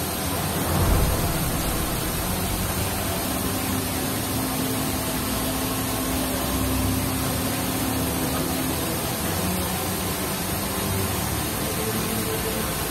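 Steady rushing of fire-hose water spray falling between stacked steel shipping containers, over a low machinery hum, with a brief thump about a second in.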